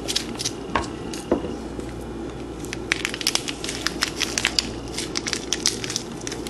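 Maggi bouillon cubes crumbled between fingers over a plastic bowl of sliced vegetables: a run of small dry crackles, thickest in the middle, as the crumbs fall in. A steady low hum lies underneath.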